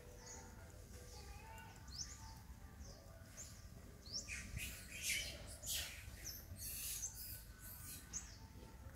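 Birds chirping in short, high calls, some falling in pitch, growing busier and louder in the second half.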